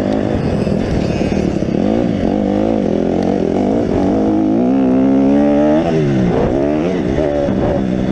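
Honda motocross dirt bike engine under hard riding, revving up and down through the gears; the pitch climbs highest about two-thirds of the way through, then drops sharply as the throttle is closed.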